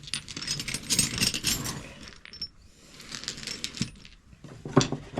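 Metal hand tools clinking and rattling against one another as they are handled, a dense clatter for about two seconds, then lighter scattered clinks and a couple of single knocks near the end.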